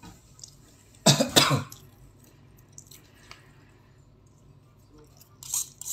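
A person coughing twice in quick succession, about a second in, with a short breathy hiss near the end.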